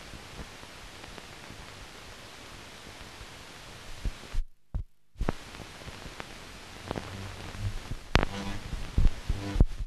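Steady hiss and crackle of an old optical film soundtrack. About halfway through there is a short dropout with sharp pops on either side, and more scattered pops and brief low buzzy sounds follow near the end.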